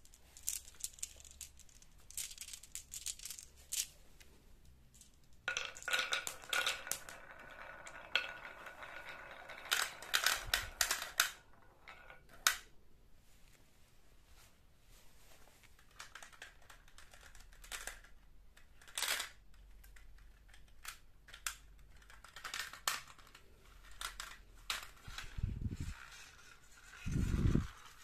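Marbles clicking and rattling as they roll down a wavy wooden marble track and through a ribbed plastic pop tube into a toy vehicle, with a denser rolling rattle from about six to eleven seconds in. Two dull thumps come near the end.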